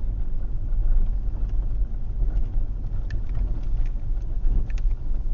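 Ford car driving on a rough dirt track: a steady low rumble of engine and tyres, with a few light knocks and rattles in the second half.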